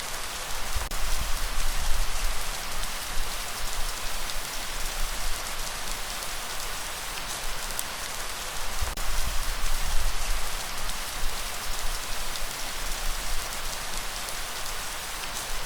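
Steady rainfall, an even hiss of drops on surfaces. A low gusting rumble from a breeze swells twice, about two seconds and ten seconds in.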